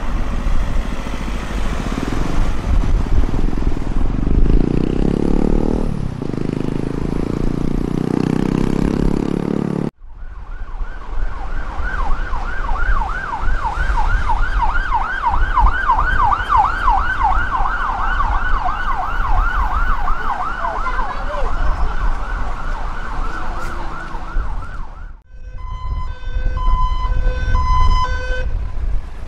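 Emergency vehicle sirens in three cut-together passes. First comes a low pulsing sound under traffic noise. Then comes a fast yelp siren sweeping up and down about two to three times a second from an unmarked police van. Near the end, a fire engine's siren gives short pulsed tones switching on and off.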